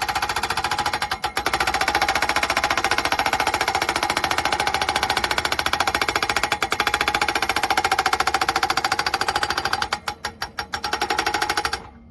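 THOR TH40 hydraulic post driver hammering a post with rapid, evenly spaced blows and a metallic ring. The hammering stutters briefly twice and stops abruptly near the end.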